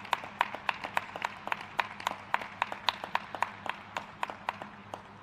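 Rapid, irregular sharp clicks of table tennis balls striking rackets and bouncing on tables, several a second and varying in loudness, fading slightly toward the end.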